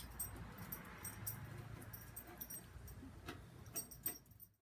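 Faint scattered light clicks and clinks over a low steady hum, with a few sharper clicks near the end.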